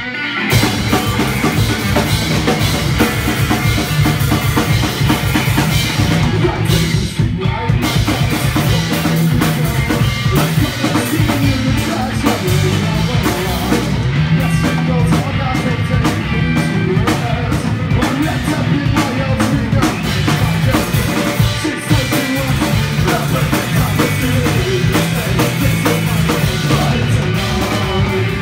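Live punk rock band playing: electric guitars over a drum kit keeping a steady, driving beat.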